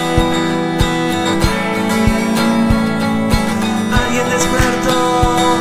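Instrumental passage of a song: acoustic guitar strumming over a steady low beat, with no vocals.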